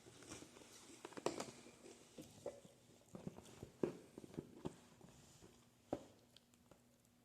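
Faint, irregular taps, clicks and light rustling of a cardboard box and packaging being handled, with a few sharper knocks about a second in, near four seconds and near six seconds.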